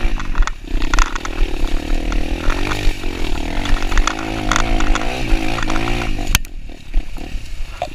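Kawasaki dirt bike engine running under the rider, its pitch rising and falling as the throttle is worked over a rough trail, with short knocks and rattles throughout. A sharp knock comes about six and a half seconds in, and the engine then eases off briefly.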